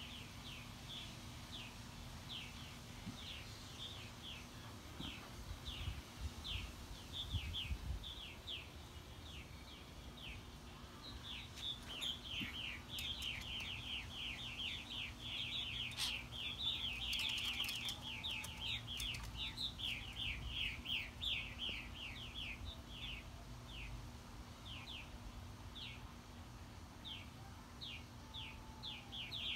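Purple martins giving alarm calls while mobbing a Cooper's hawk: short, downward-slurred chirps about two a second, building to a dense, rapid chatter about a third of the way in for several seconds, then thinning out again.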